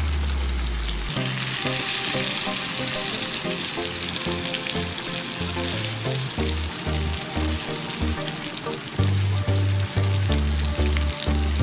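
Masala-coated whole fish frying in oil with tomatoes in a nonstick pan: a steady sizzle, with a spatula stirring and turning it. Background music with a deep bassline runs underneath, its beat growing stronger about nine seconds in.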